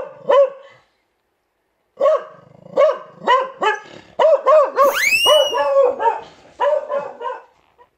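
Beagle barking at a window: short barks, a pause of about a second, then a faster run of barks with one higher, rising cry about five seconds in, fading out just before the end.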